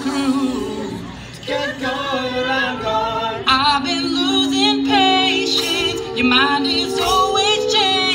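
Men's a cappella group singing without lyrics the recogniser caught: held chords from the backing voices under a higher voice singing wavering runs, with a short drop in level about a second in before the voices come back in.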